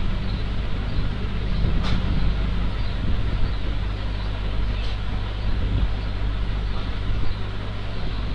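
Steady low hum and rumble with an even hiss over it, and a faint click about two seconds in and another about five seconds in.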